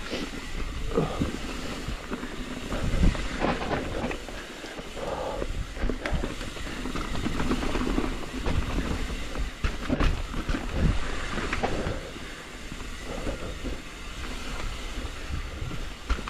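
Mountain bike, a Transition TransAM hardtail, riding down a dirt singletrack: tyre noise on the trail with the bike rattling and clattering irregularly over bumps and roots.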